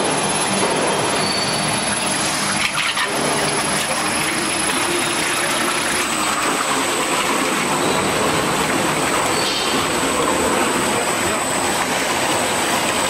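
LZ-1500L open dual-shaft mixer running: its high-speed disperser and anchor agitator churn liquid in the stainless steel vessel, making a loud, steady rush of motor and splashing noise. A thin high whine sits above it and steps down in pitch about six seconds in.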